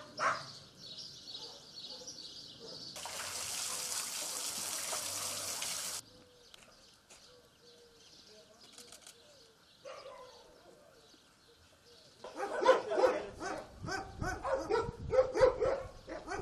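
Several shelter dogs barking at once, a dense chorus of yaps and barks starting about twelve seconds in. Before that, small birds chirp, and a steady hiss runs for about three seconds and then cuts off suddenly.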